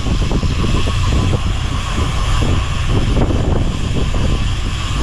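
Fishing boat's engine running steadily under way, a continuous low hum with a rushing noise over it.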